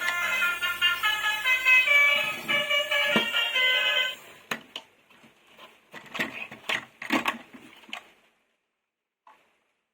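A bright electronic jingle of quick beeping notes that cuts off abruptly about four seconds in. It is followed by a few seconds of scattered clicks and knocks, like plastic toys and packaging being handled, and then near silence.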